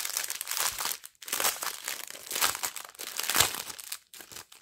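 Clear plastic packaging crinkling as a bagged diamond-painting tool kit is handled and moved about, in irregular rustles with brief pauses about a second in and near the end.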